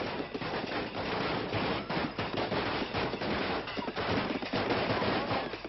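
A string of firecrackers going off in a dense, rapid crackle of bangs, set off for the Tết new-year celebration.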